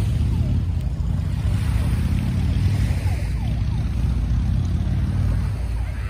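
Steady low rumble of wind buffeting the microphone on an open beach, with faint distant voices.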